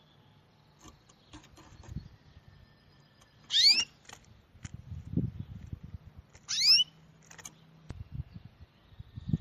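A bird giving two loud, rising whistled calls about three seconds apart, with scattered clicks and low thumps between them.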